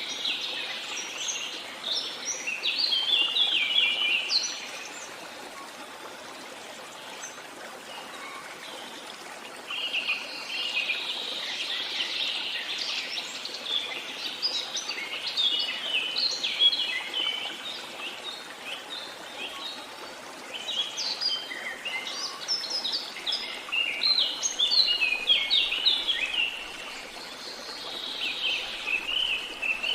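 Songbirds singing in long phrases of quick, high chirps and trills, each phrase lasting several seconds with pauses of a few seconds between, over a steady background hiss.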